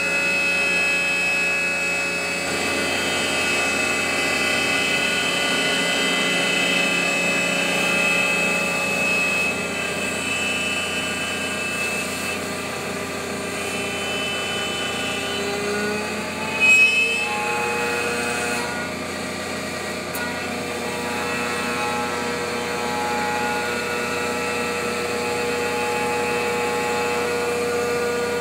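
RIGG44 CNC router spindle running at speed, its bit cutting a wooden block: a steady whine of several tones over the noise of chips being cut. The tones shift about halfway through, with a short louder burst.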